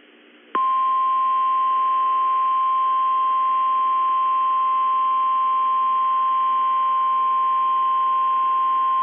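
NOAA Weather Radio warning alarm tone (1050 Hz): one steady, unbroken high tone starting about half a second in, heard through a radio receiver. It is the alert signal that a warning message is about to follow.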